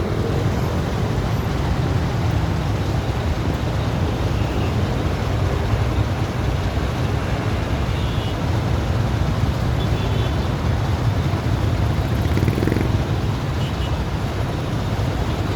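Steady low outdoor rumble of the traffic kind, even throughout, with no bangs or explosions.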